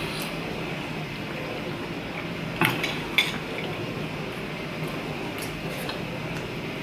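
Two sharp clinks of cutlery or fingers against a china plate, about two and a half and three seconds in, with a few fainter clicks, over a steady background hum.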